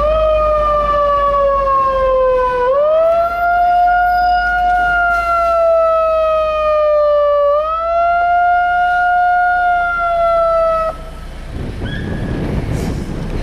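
A siren wailing. Its single pitch sags slowly, swoops back up twice, and cuts off abruptly near the end.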